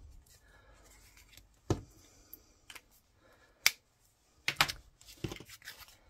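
Small handling sounds of paper crafting: a few separate sharp clicks and taps as a marker, metal tweezers and card stock are handled on a cutting mat. The clicks and scrapes bunch together near the end.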